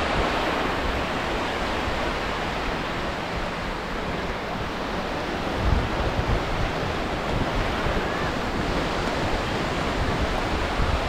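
Sea waves washing onto the shore: a steady rushing noise, with wind buffeting the microphone in low gusts.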